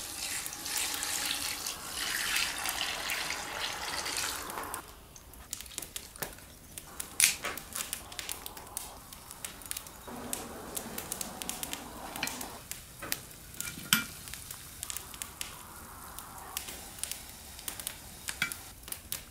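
Water pouring in a steady stream into an iron pot for about five seconds, then stopping suddenly. After that a wood fire crackles with scattered sharp pops, two of them loud, while the pot boils.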